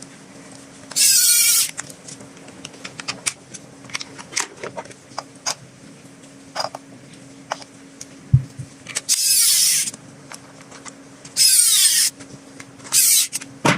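Plastic toy gun being worked by hand: scattered clicks and clacks, with four loud bursts of noise, each under a second long and falling in pitch, and a single low thump about eight seconds in.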